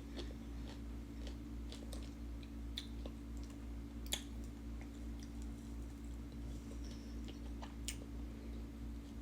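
A person chewing fried food close to the microphone, with a few sharp crunches or clicks, over a steady low hum.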